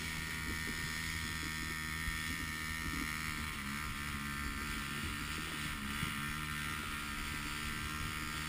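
Quad bike engine running steadily at an even pace as it tows a kayak, with the kayak's hull sliding over the snow.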